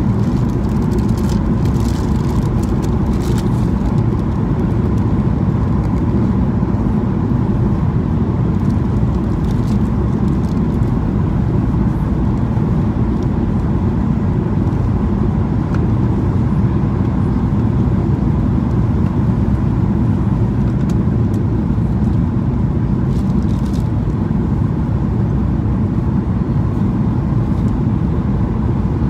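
Steady cabin noise of a Boeing 737-800 on approach: the rumble of its CFM56 engines and the airflow along the fuselage, heard from inside the cabin, with a faint steady tone over it.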